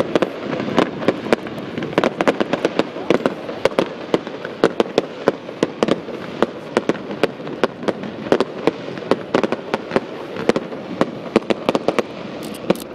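Aerial fireworks display: a dense, irregular run of sharp bangs and crackles from bursting shells, several a second, over a continuous noisy background.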